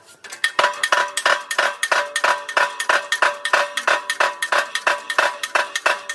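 Rapid, evenly spaced metallic clinks, several a second, each with a ringing tone, from steel parts being worked in a hydraulic shop press while a bearing race is pressed into a bus front hub.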